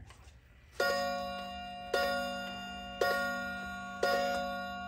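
Aikosha 30-day pendulum wall clock striking the hour: four strokes about a second apart, each ringing and fading, sounding 4 o'clock.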